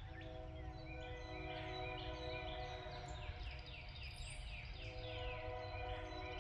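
Locomotive air horn sounding a chord at a distance as the train approaches: one long blast, a short break about four and a half seconds in, then another blast. A songbird sings a series of falling notes over it in the middle.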